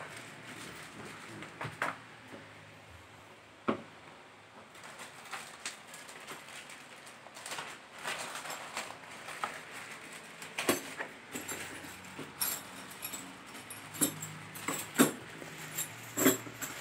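Clear plastic bags of treadmill parts being handled and crinkled, with scattered light knocks and rustles that grow busier in the second half.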